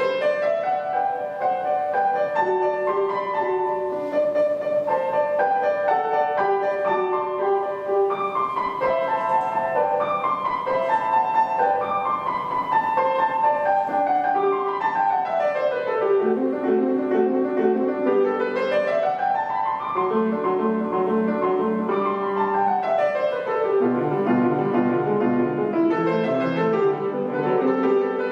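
Solo acoustic piano playing a classical piece. Quick runs sweep down and back up the keyboard several times over repeated broken chords in the bass.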